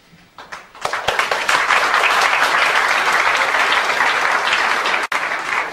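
Audience applauding. The clapping comes in about a second in and holds steady, with a brief break near the end.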